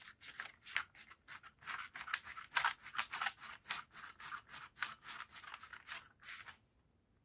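Scissors snipping through a large sheet of pattern paper in a quick run of cuts, about three or four a second, stopping shortly before the end.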